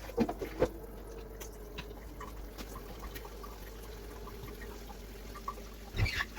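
Water running into a kitchen sink to soak air fryer drawers in dish soap, with a few clicks and knocks near the start and a louder knock near the end.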